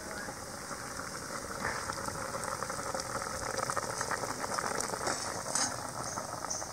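Tamarind broth with okra and tomato bubbling at a boil in an open aluminium pressure-cooker pot, a steady fine crackle of bursting bubbles, with a few light knocks as ground masala paste is scraped from a steel mixer jar into it.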